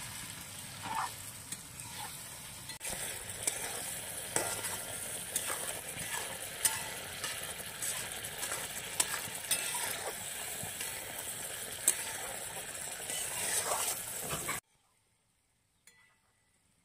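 Spiced vegetables and eggs sizzling in oil in a steel wok, with a metal spatula scraping and clicking against the pan as they are stirred in with freshly added masala paste. The sound cuts off suddenly near the end, leaving near silence.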